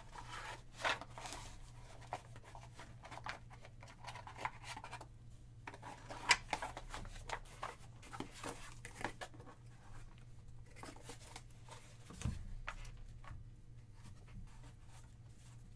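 Stacks of trading cards being handled and packed into a white cardboard card box: scattered light taps, slides and clicks of cards against cardboard, with one sharper click about six seconds in, over a steady low hum.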